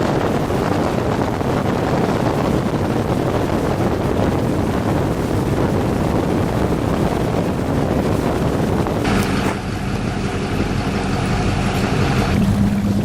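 Motorboat running under way: a loud, steady rush of wind and water over a low engine hum, the hum coming through more clearly near the end.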